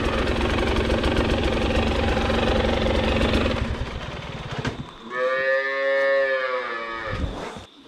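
Husqvarna enduro dirt bike engine running at low revs, then easing off a little past halfway. About five seconds in, a cow moos once, a long call about two seconds long that rises and falls in pitch.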